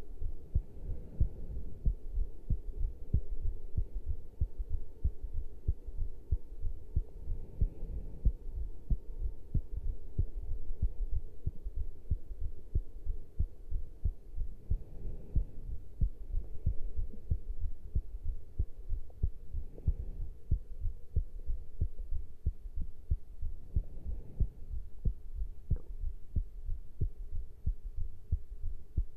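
Human heart sounds after caffeine intake: a regular run of low thumps from the beating heart, picked up close against the chest.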